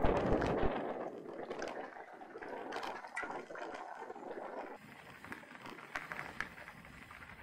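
Mountain bike ride: a loud rush of wind on the microphone dies away within the first second, leaving the scattered clicks and rattles of the bike rolling over rough ground.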